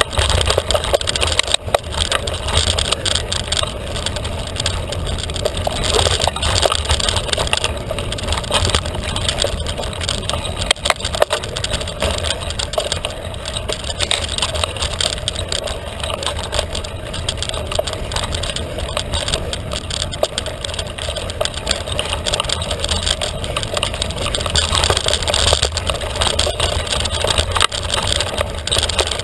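Felt carbon 29er mountain bike ridden hard along a dirt trail: tyres crunching over the ground and the bike rattling and clattering over bumps. The clatter comes in many short sharp knocks over a steady low rumble.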